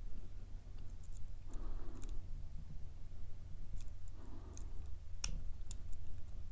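Small, irregular metallic clicks and ticks of a lock pick and tension wrench working the pins inside a padlock's cylinder, pins setting as it is picked.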